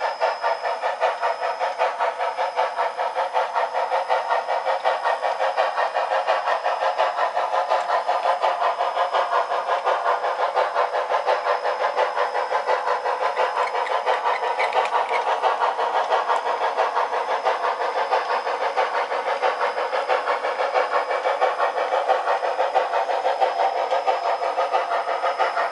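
Sound decoder in an HOn3 model of narrow-gauge steam locomotive #478 playing steady steam exhaust chuffs, about four a second, through a small speaker with no bass. A thin steady high tone runs under the chuffing.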